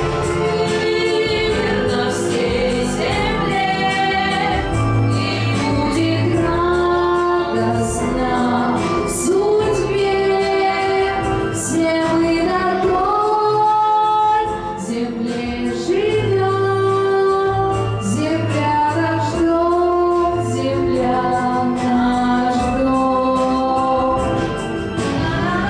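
A girl singing a Russian pop song into a handheld microphone over instrumental accompaniment, with long held notes. The teacher judges that she is pushing the voice rather than singing in head voice.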